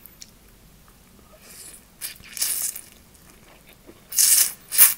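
Funchoza glass noodles slurped off chopsticks: two loud, breathy slurps near the end, with a softer burst of the same kind about two seconds in.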